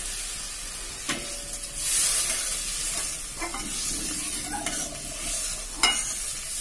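Metal spatula stirring and scraping around a stainless steel kadai, with a few sharp clinks against the pan, over a steady sizzle of a thin masala curry sauce heating after water was added.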